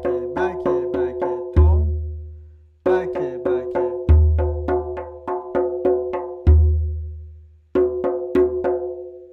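Tombak (Persian goblet drum) played by hand in a fast, even pattern of sharp ringing rim strokes (bak) with deep, longer-ringing center strokes (tom). The strokes come about four to a beat, with two short breaks, and stop near the end with the last stroke dying away.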